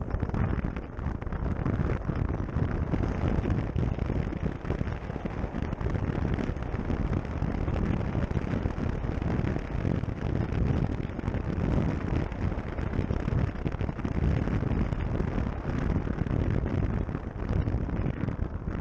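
Steady wind rush on the microphone of a rider moving on a Zero SR/F electric motorcycle, mostly a low rumble, with no engine note from the electric bike.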